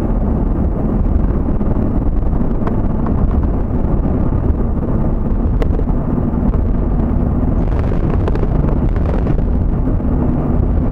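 Steady road and engine noise of a moving vehicle, heard from inside the cabin.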